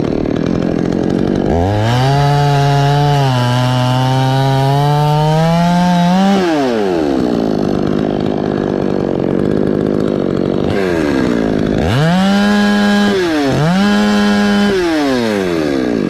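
Chainsaw cutting into a coconut palm trunk: the engine's pitch drops sharply as the chain bites, climbs slowly through the cut, then falls away. Near the end a second, shorter cut pulls the pitch down twice more before the engine slows.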